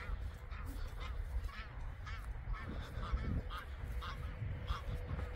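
A flock of geese honking, many short calls one after another and overlapping, from birds disturbed by someone walking towards them.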